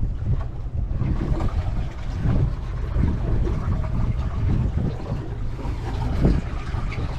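Wind buffeting the microphone aboard a small boat: a continuous low rumble that jitters irregularly, with a faint hiss above it.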